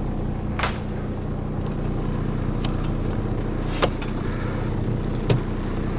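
Engine running steadily at idle, a low even hum, with a few sharp clicks or snaps over it.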